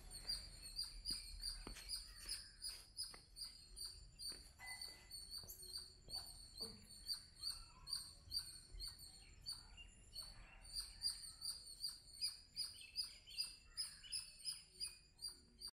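Birds chirping in short high notes, repeated about twice a second, over a faint steady high-pitched whine.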